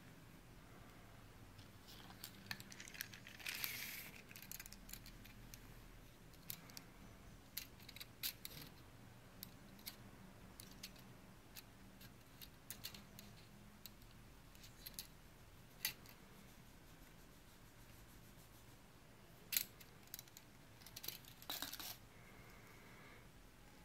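Faint handling noise of a small folding knife being turned over in the hands: scattered light clicks and a few brief rustles, with one sharper click about three-quarters of the way through.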